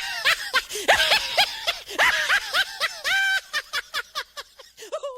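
High-pitched laughter: a fast run of short rising-and-falling 'ha' sounds that slows and fades toward the end, then cuts off abruptly.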